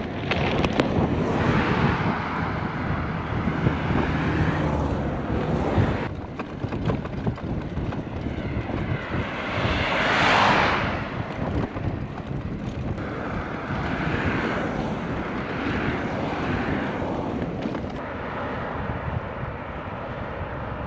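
Wind rushing over the microphone during a bicycle ride along a road, with a vehicle passing about ten seconds in, its sound swelling and fading.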